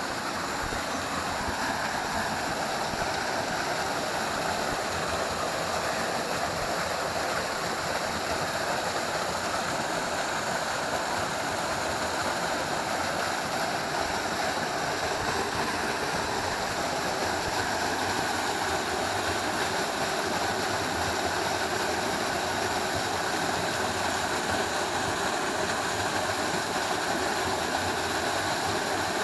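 Waterfall pouring into a stream: a steady, even rush of falling and running water.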